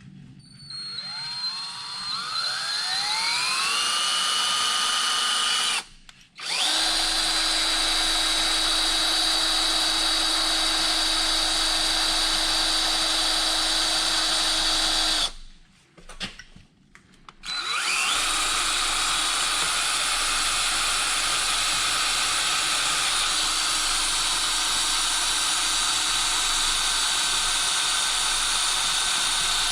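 Power drill running in three long runs with short pauses between, drilling a small hole for the locating tab of a battery disconnect switch. The first run spins up with a rising whine that levels off.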